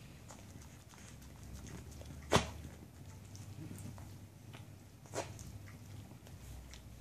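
Small long-haired dog being sick: quiet retching noises, with one loud sharp click about two and a half seconds in and a softer click about five seconds in.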